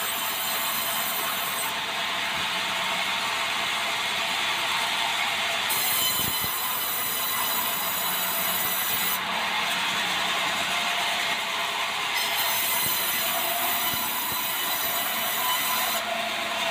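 Swing-blade sawmill running and sawing meranti timber into boards, a steady mechanical saw noise throughout. A higher, hissing edge comes in and drops out three times: near the start, about six seconds in, and about twelve seconds in, each spell lasting a few seconds.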